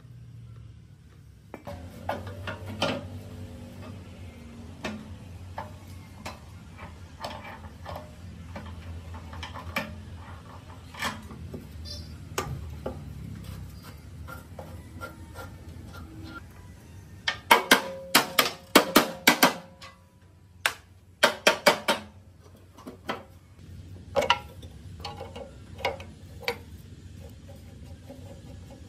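Hand tools clinking and clanking on the rusty metal of a vintage air compressor's engine as it is taken apart, scattered knocks throughout. Past the middle comes a quick run of about eight loud ringing metal knocks in two seconds, then three or four more shortly after.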